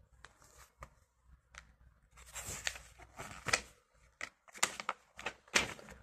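Pages of a paper catalogue being turned and handled: a few light clicks, then a busier run of short paper rustles and crinkles through the second half.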